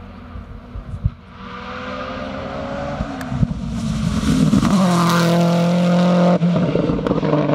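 A race car's engine at full throttle, approaching with rising pitch and getting louder, then passing close by at high revs. There is a brief drop in the sound about six seconds in.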